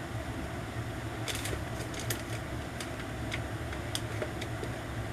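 Light clicks and taps of plastic phone cases being handled, scattered over a few seconds, over a steady low background hum.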